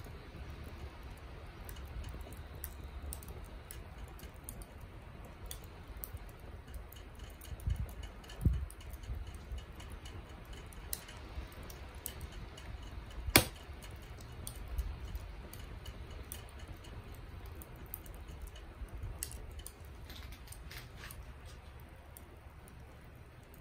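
Binchotan charcoal crackling as it catches fire: sparse small ticks and clicks, with one sharp pop about 13 seconds in, over a steady low rumble.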